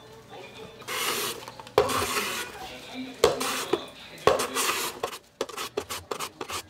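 Carrot pushed across a julienne mandoline slicer, a rasping stroke about once a second, then a run of short, quick strokes near the end.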